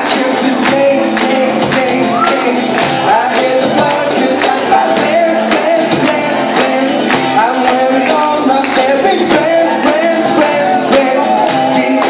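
Amplified live band music: a voice singing into a microphone over guitar and a cajón beating a steady rhythm.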